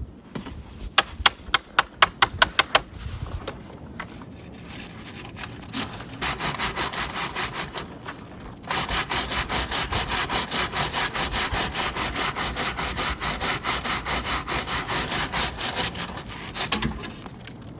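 Chimney brush scrubbing back and forth inside a wood-stove chimney pipe, fast even scraping strokes about four or five a second, loosening creosote buildup. A quick run of sharp clicks comes first, and the scrubbing starts in a shorter spell before settling into a long steady run.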